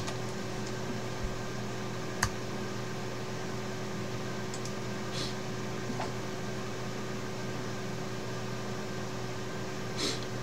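Steady fan hum with a low electrical drone and even hiss, with one sharp click about two seconds in and a faint brief sound near the end.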